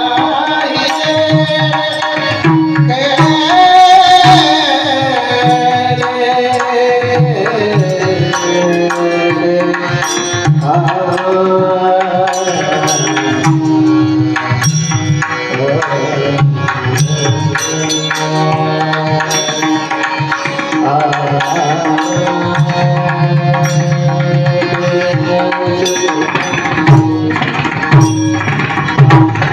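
Marathi kirtan music: a male devotional singer with tabla playing a rhythm throughout, over steady held accompanying tones.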